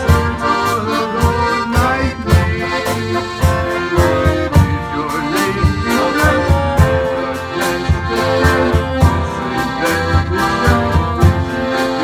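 Live band playing an instrumental passage: a piano accordion carries the melody in sustained chords over a drum kit's steady beat with cymbal and a guitar.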